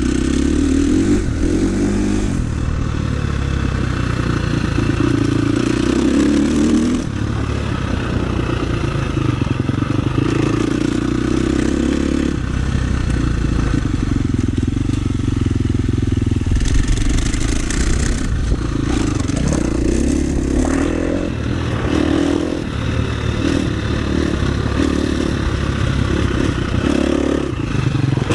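KTM 350 SX-F's single-cylinder four-stroke engine revving up and dropping back again and again as the motocross bike is ridden hard around a dirt track, with short knocks and clatter from the bike over the rough ground in the second half.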